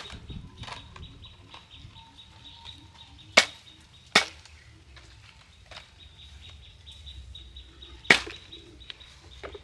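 Large knife chopping through a stingray onto a wooden block: four sharp chops at uneven intervals, with a few fainter taps between.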